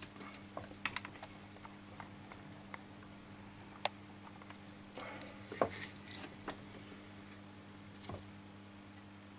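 Faint, scattered light clicks and taps of hand soldering work on a circuit board, over a low steady hum.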